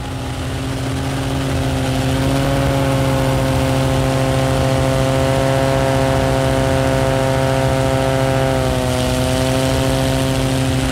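Propeller airplane engine droning steadily in flight over a rush of air, fading in at the start, its pitch dipping slightly near the end.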